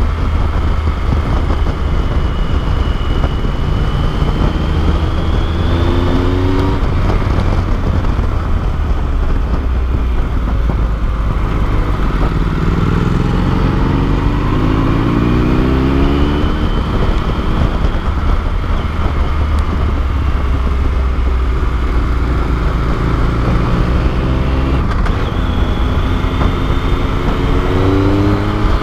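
Motorcycle engine running under way, with wind and road noise over the microphone. Its note rises several times as the bike accelerates, most clearly about halfway through.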